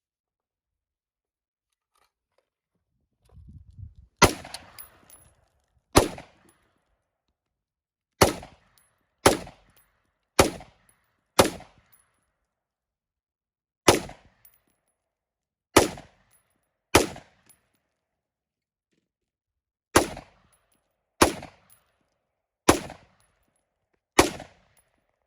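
Thirteen single gunshots fired at an unhurried pace, one to two and a half seconds apart, each a sharp crack with a short echo. A brief low rumble comes just before the first shot.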